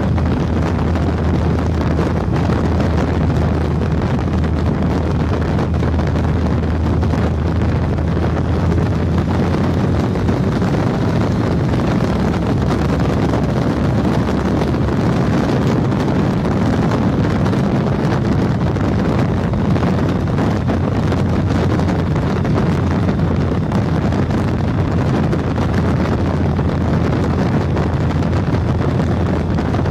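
Heavy wind buffeting on a handlebar-mounted camera's microphone at motorway speed, over the steady drone of a Triumph Tiger 1050's three-cylinder engine cruising.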